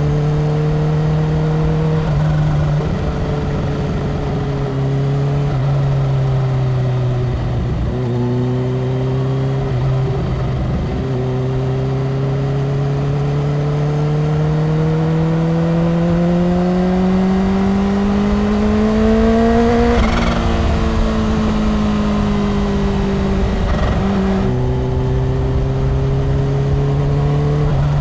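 Kawasaki Ninja H2's supercharged inline-four engine running at highway speed. The engine note breaks briefly a few times as it changes gear, then climbs steadily in pitch under a long acceleration, eases off, and drops again near the end.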